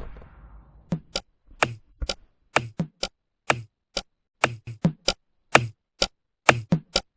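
A fading tail of sound in the first second, then a run of sharp, dry knocks, each a low thud with a crisp click, about twenty of them at an uneven pace of roughly three a second.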